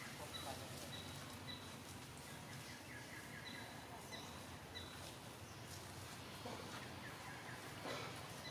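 Faint outdoor background noise with short, high chirps from a small animal repeating every half second or so.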